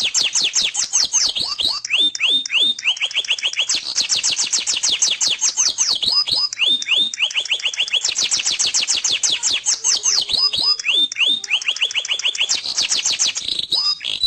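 Domestic canary singing a continuous rolling song: fast trills of rapidly repeated notes, each note sweeping down in pitch, switching from one trill type to another every second or two.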